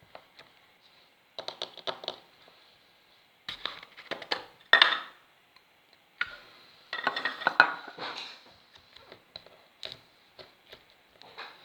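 Squishy Pasta Magica Crystal Gem slime being squeezed and pressed by hand, giving bursts of crackling, popping clicks in three main runs, the loudest about five seconds in, then scattered smaller pops.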